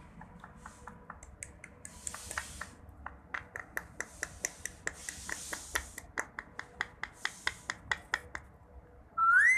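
Rapid sharp clicks, about five a second, with a few brief soft rubbing noises among them, then a parrot's loud whistle that rises and falls near the end.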